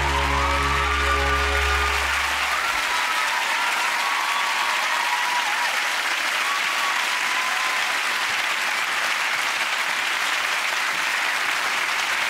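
Studio audience applauding. The final held chord of the aria's accompaniment, with a low sustained note, stops about two and a half seconds in, leaving the applause alone.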